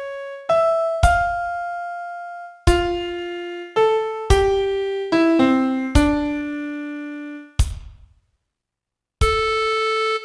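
Piano-sound melody played one note at a time, each note struck and fading away, with a short run of quicker notes about five seconds in. The notes stop for about a second near the end, then resume with a held note.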